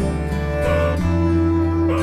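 Instrumental background music with plucked strings over held low notes.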